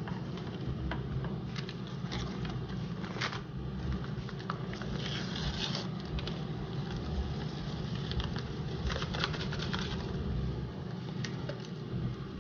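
Metal tongs clicking and scraping in a plastic bowl as raw chicken wings are tossed, with a seasoning packet shaken out over them about five seconds in. Under it runs the steady low hum of the air fryer's fan.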